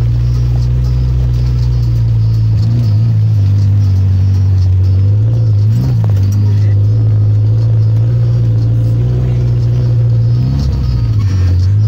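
Off-road vehicle's engine running steadily under load while driving through sand dunes, its pitch dipping briefly about six seconds in and again near the end as the revs drop.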